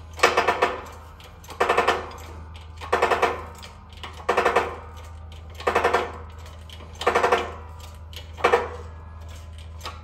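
Shop press's hydraulic bottle jack being pumped by hand, a short rattling creak with each stroke, seven strokes evenly about a second and a half apart, as it forces a ball bearing down onto a golf cart axle shaft. A steady low hum runs underneath.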